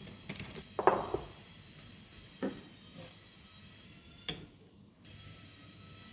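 Metal parts of an angle grinder and bevel-cutting jig handled on a wooden workbench: a quick run of clinks and knocks about a second in, the loudest, then single knocks at about two and a half and four seconds.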